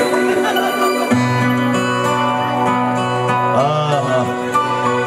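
Instrumental intro of a Turkish song played by a band: sustained chords with a bass line entering about a second in, and a note bending in pitch near the middle.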